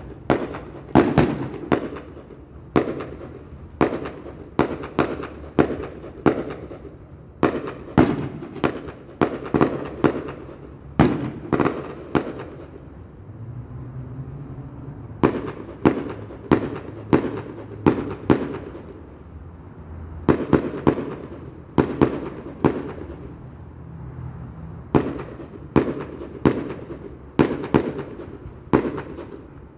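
Aerial fireworks bursting in a fast run of sharp bangs, one or two a second, each trailing a short echo; the bangs pause for about two seconds near the middle, then carry on.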